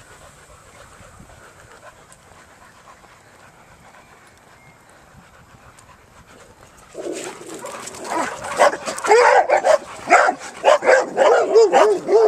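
A quiet stretch, then about seven seconds in, dogs start barking and yelping excitedly in rapid, closely packed calls that keep on.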